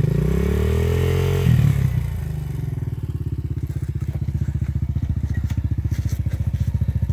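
Dirt bike engine revving up over the first second and a half, then dropping with a short louder burst and pulling at low revs in a steady chugging note as the bike crawls over rocks.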